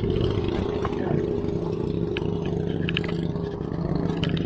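Motorized bangka (outrigger boat) engine running steadily, with a few sharp clicks over it.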